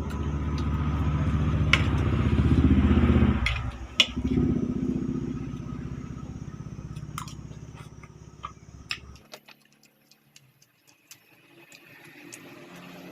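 An engine running close by. It gets louder over the first few seconds, dips briefly, then fades away and stops about nine seconds in. Sharp clicks come and go throughout.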